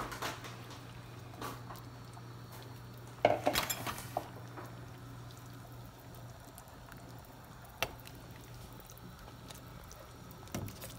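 Pieces of cooked blood going into a pot of soup: quiet liquid sounds and a utensil knocking against the pot, with a short clatter of several knocks about three seconds in and a few single clicks later, over a steady low hum.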